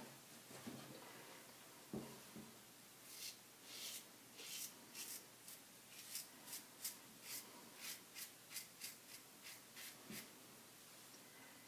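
Schick Krona double-edge safety razor scraping through lathered stubble on the neck in short, quick strokes, about two a second, on an upward across-the-grain pass. There is a soft knock about two seconds in and another near the end.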